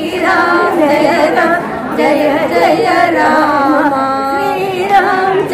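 Devotional bhajan being sung, women's voices holding long wavering notes in a Carnatic style.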